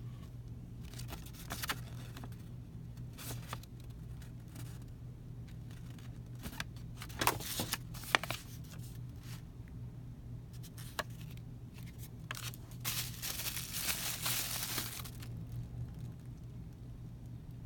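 Paper and packaging rustling and crinkling as they are handled, with scattered light clicks and taps, and a longer stretch of crinkling near the end. A low steady hum runs underneath.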